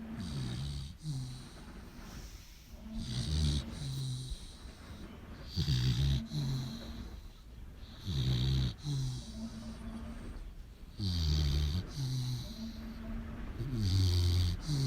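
American Pit Bull Terrier snoring in its sleep: a noisy, rattling snore repeating about every two and a half to three seconds, some breaths carrying a high hiss.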